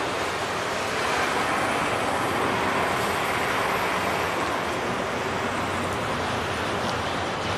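Double-stack intermodal freight train's well cars rolling over a steel girder overpass: a steady noise of steel wheels on rail, getting slightly louder about a second in.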